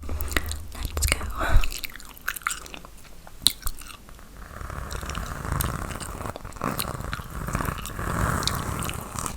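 Gum chewing close to the microphone: wet clicks and smacks throughout, with a steadier rustling hiss joining about halfway through.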